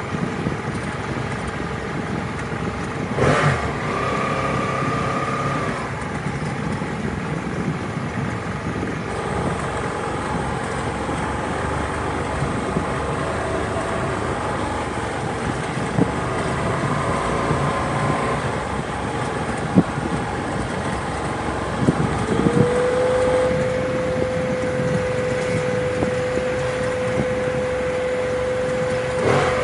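Motorcycle engine running while riding, with steady wind rush. About 22 seconds in the engine note rises, then holds steady. There is a thump about three seconds in and another near the end.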